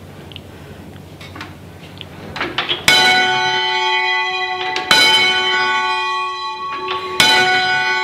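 A church bell hung on a wheel for full-circle change ringing, swinging in its frame and struck by its clapper three times about two seconds apart, the first stroke about three seconds in. Each stroke rings on with a long hum into the next. Heard at close range in the bell chamber, with a few faint knocks from the swinging bell and frame before the first stroke.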